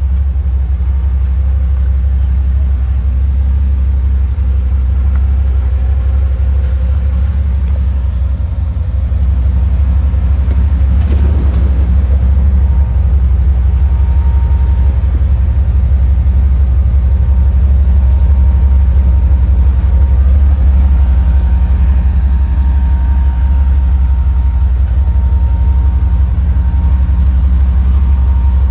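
Jeep Comanche pickup's engine running steadily at low speed while crawling an off-road trail, getting a little louder about nine seconds in, with a brief knock near eleven seconds.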